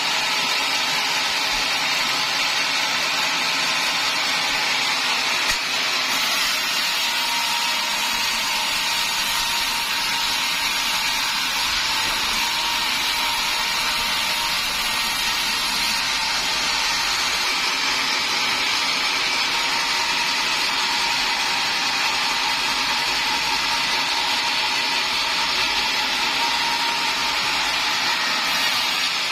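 Sawmill saw running steadily while cutting timber into rafter stock, a continuous loud machine noise with a faint steady whine.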